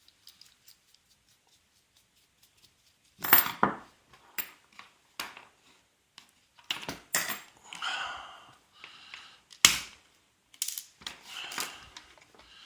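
Small metal tools and parts being handled and set down on a hard work surface: scattered sharp clicks and clatters that start about three seconds in, after a quiet pause.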